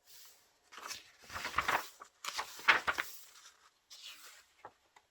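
Paper being handled: a few spells of rustling and crinkling from magazine pages, then a couple of short clicks near the end.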